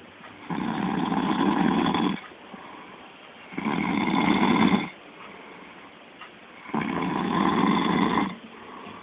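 A man snoring in his sleep: three long snores about three seconds apart, each lasting over a second.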